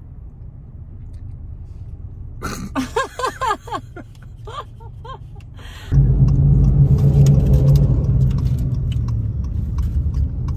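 Low rumble of a car on the move, heard from inside the cabin, stepping up sharply to a louder, fuller drone about six seconds in; a child's voice speaks briefly in the middle.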